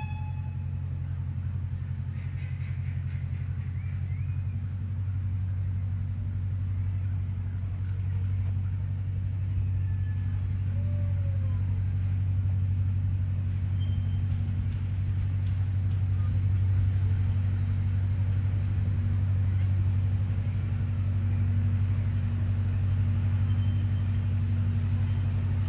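Steady low engine rumble of the approaching park railway train, slowly growing louder, with a few faint bird chirps.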